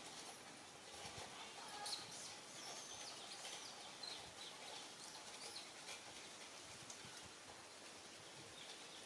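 Faint outdoor background with a few scattered short, high chirps.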